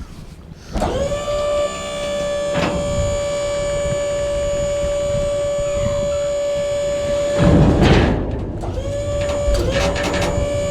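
Heavy log-handling machinery running with a steady high-pitched whine that rises in about a second in and holds. About seven and a half seconds in it breaks off in a loud crash, then the whine picks up again.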